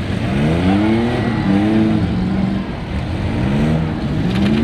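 Demolition-derby vans' and pickups' engines revving hard against each other over a steady rumble. The pitch climbs steeply and holds, then drops, about four times.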